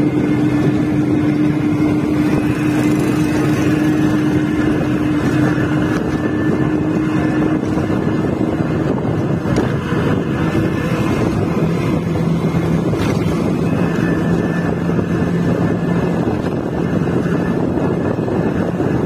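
Bus engine running at speed with steady road and wind noise heard from inside the moving bus. The engine's hum shifts to a lower tone about halfway through.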